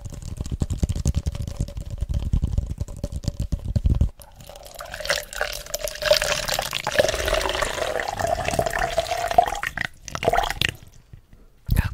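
Plastic cup handled close to the microphone, then water poured from a plastic bottle into the plastic cup for about five seconds, the pitch of the pour rising as the cup fills.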